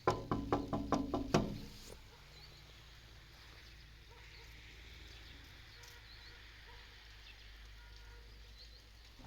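A quick run of about eight sharp knocks in the first two seconds, then a low steady background with a few faint high chirps.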